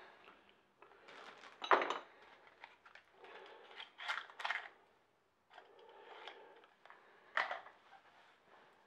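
Small metal parts being handled by hand: light rattles and rustles with a few sharp clicks, the loudest about two seconds in, from spark plugs and a small tool.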